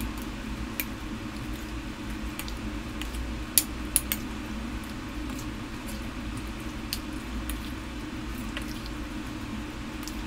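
A metal spoon mixing raw chicken slices in a thick marinade in a ceramic bowl: wet squishing with scattered clicks of the spoon against the bowl, two sharper clinks about three and a half and four seconds in. A low steady hum runs underneath.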